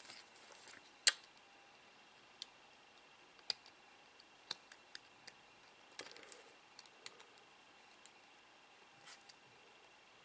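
Scattered light clicks and ticks of small drone parts and tools being handled, the sharpest about a second in, over a faint steady high tone.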